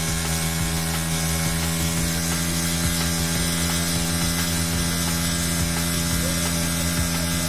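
Bajaj Pulsar NS160's single-cylinder engine held at high revs at a steady, unchanging pitch during a burnout, the rear tyre spinning on the wet road.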